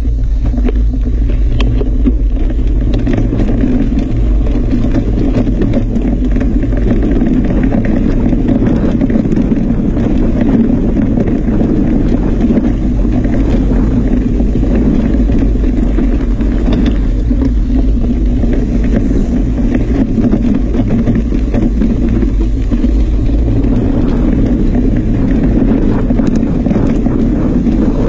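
Continuous rumble of wind and motion on a moving camera's microphone, with frequent small clicks and rattles, as from a ride along a dirt trail.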